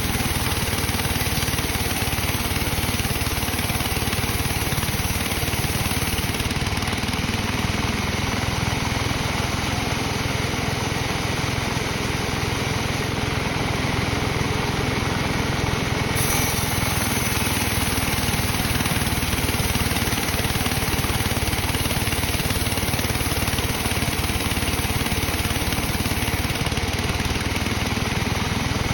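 Sawmill machinery running with a steady engine drone that holds level throughout.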